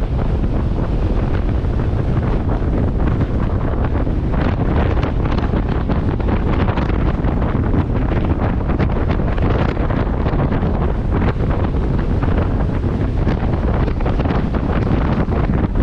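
Tropical-storm wind buffeting the microphone in strong, rapid gusts over the steady rush of heavy surf.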